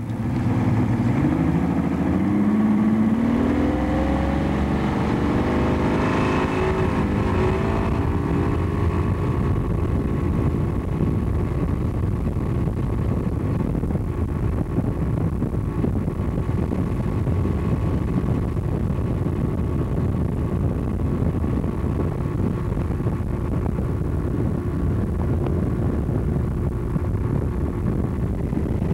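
Outboard motor on a bass boat speeding up, its pitch climbing over the first eight seconds or so, then running steadily at speed under a heavy rush of wind and water noise.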